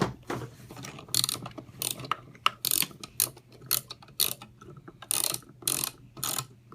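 Electric toy train running on its track, its motor and gears whirring under a rhythmic clatter of about two strokes a second.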